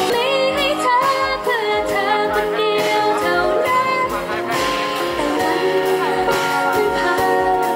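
Live pop band performance: female vocals sung over acoustic and electric guitar, with a steady low beat of about two pulses a second.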